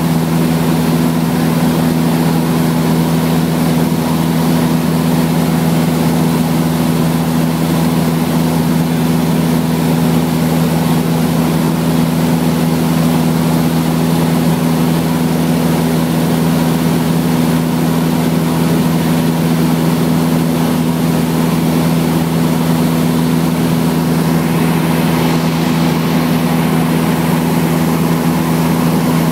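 Light propeller plane's engine and propeller droning steadily, heard from inside the cabin: a constant low hum with an even hiss above it.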